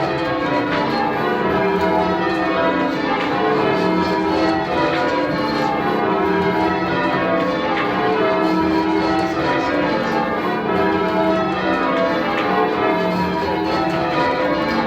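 A ring of ten church bells, tenor 18½ cwt in E, being rung full circle by change ringers. The strikes follow one another in a continuous, overlapping stream of bell tones.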